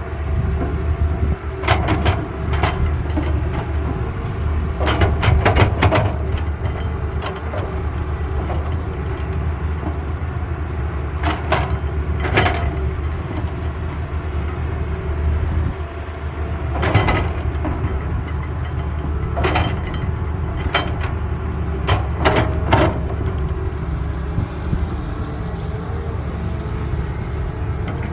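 Heavy-duty diesel engine of a CAT excavator running steadily while it digs and loads dump trucks, with several bursts of sharp metallic clanks and knocks from the bucket and the load.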